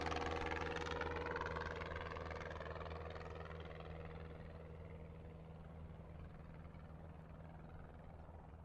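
Single-engine propeller airplane flying away, its steady engine drone fading gradually through the whole stretch.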